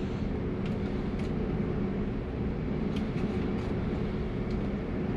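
Steady low machine rumble with a faint steady hum and a few faint clicks.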